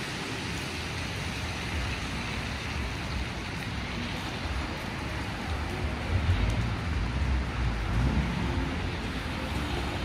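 Steady city street noise: a continuous hiss of traffic, with a low vehicle rumble growing louder about six seconds in.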